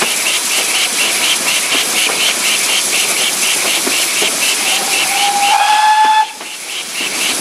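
GWR steam tank locomotive on the move, a quick regular beat with steam hiss, sounding its whistle once about five seconds in: a slightly rising tone held for about a second and a half that cuts off suddenly, the warning given on approaching a tunnel.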